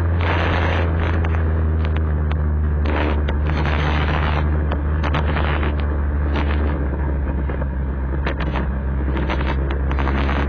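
Vespa scooter engine running steadily at cruising speed, a constant low drone heard from a camera mounted on the moving scooter, with wind buffeting and road bumps on the microphone. The engine note eases off slightly about two-thirds of the way through.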